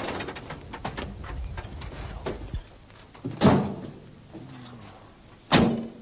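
IFA W50 truck's diesel engine running down and stopping about two and a half seconds in, after it has been brought to a halt. Then two loud thuds from the steel cab door, the second slamming it shut near the end.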